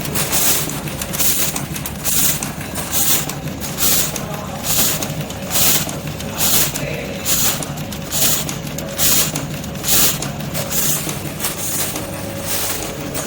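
Automatic string-light soldering machine cycling, a sharp hissing burst a little faster than once a second over a steady low hum, about 70 strokes a minute.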